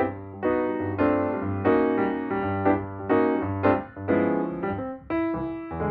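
Background piano music: a tune of separate notes over a steady bass line.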